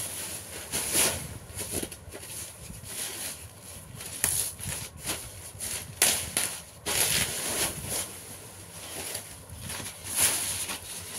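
Sheets of paper rustling and crinkling as they are handled and folded by hand, in irregular bursts with a few sharper crackles.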